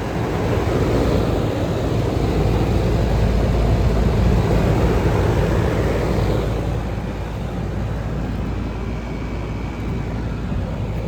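Outdoor air-conditioning condensing units running: a steady rush of fan air over a low hum. It grows louder about a second in and eases off again after about six seconds.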